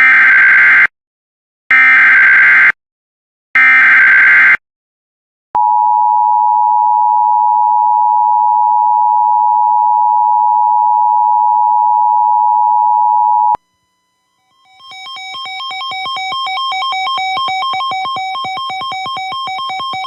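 Emergency Alert System tones: three short bursts of the SAME digital header, a harsh warbling data screech, then the two-tone attention signal held steady for about eight seconds before it cuts off sharply. After a brief gap, synthesizer music with a quick repeating note pattern fades in.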